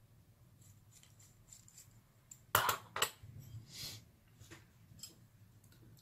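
Small hard parts being handled: faint ticks from the hex driver and screws, then two sharp clacks about two and a half and three seconds in as the RC car's rear pod is set down on the hard board, followed by a brief scrape and a few light ticks.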